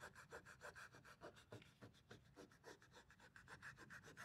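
Faint, quick rubbing of a thumb going back and forth over a textured adhesive protector film in a truck's door-handle cup, about eight short strokes a second, pressing the film down flat.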